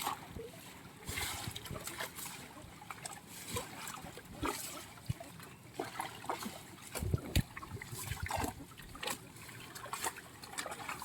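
Pond water splashing and trickling in short, irregular splashes and drips as fish are netted and hauled out. The loudest splashes come about seven seconds in.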